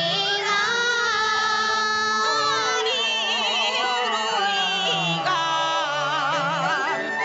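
Chinese opera music: a melody of long held notes with wide vibrato over the accompaniment, within a sung aria.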